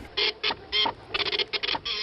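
A mechanical printing machine clattering in short, irregular bursts, several a second, each lasting a fraction of a second.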